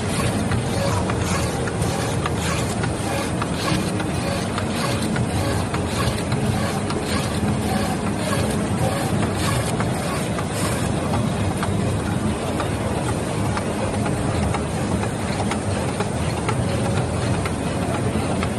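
A MYCUT FS350 automatic sheet-feeding label cutter running at high speed, its servo-driven cutting head moving and sheets feeding through. Rapid clicks sound over a steady background din and thin out past halfway.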